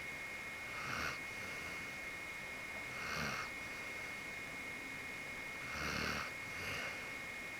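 A sleeping Akita dog snoring, one breathy snore every two to three seconds, the one about six seconds in the fullest and followed closely by a smaller one.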